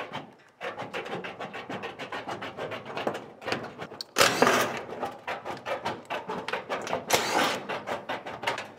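Steel ceiling sheet being worked by hand: a fast, irregular run of crisp clicks and crunches, with two louder scraping rattles of metal about four and seven seconds in.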